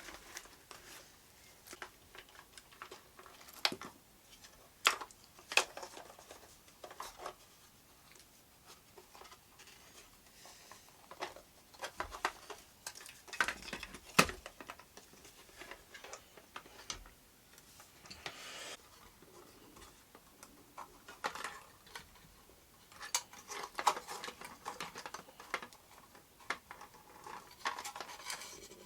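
Small parts handled by hand on a workbench: scattered clicks, taps and light knocks with short rustles between them and quiet gaps.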